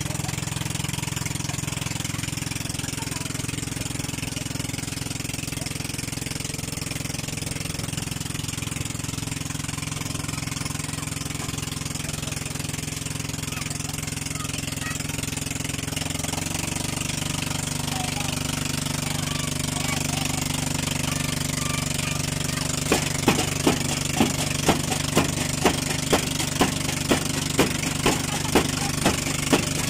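Motorized outrigger boat's engine running steadily, its note shifting about two-thirds of the way through. Near the end a run of sharp knocks, about two a second, joins in.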